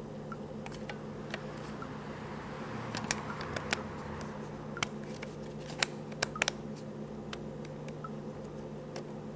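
Steady low hum of a plugged-in electric guitar amplifier, with scattered small clicks and taps and a brief hiss about three seconds in.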